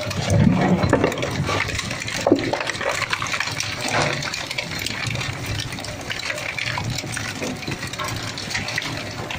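A 20 HP twin-shaft plastic shredder running, its interleaved cutter discs crunching and cracking polyethylene jugs. Sharp cracks of the plastic sound over a steady mechanical rumble, with the heaviest crunching in the first second.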